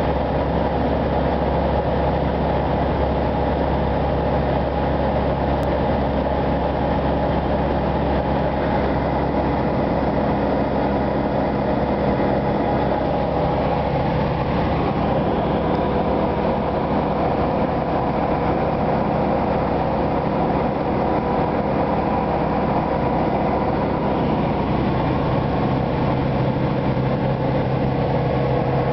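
Tecnam Sierra light aircraft's Rotax 912 four-cylinder engine and propeller running steadily in flight, a constant drone heard inside the cockpit. A deeper hum grows a little stronger near the end.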